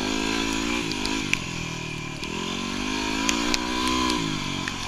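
Yamaha WR250R's single-cylinder four-stroke engine being ridden on the throttle, its pitch rising and falling several times as the rider rolls on and off. A few short sharp ticks sound over it.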